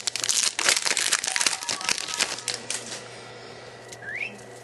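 Foil wrapper of a baseball card pack crinkling as it is pulled open and handled, dense for about two and a half seconds, then dying away to a low steady hum.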